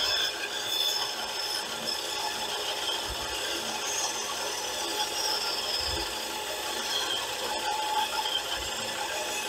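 Benchtop band saw running and cutting through the protruding end of a wooden mallet's handle and wedge: a steady machine hum with the blade rasping through the wood.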